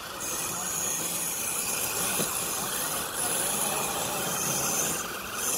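Radio-controlled scale crawler trucks' small electric motors whirring as the trucks creep over wet leaves, under a steady hiss.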